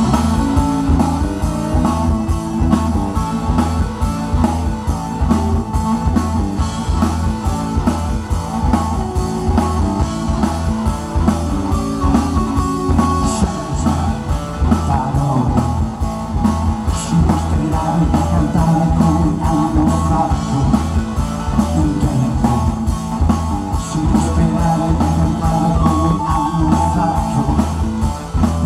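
Live band playing a song with a steady beat: drum kit, guitar and keyboards.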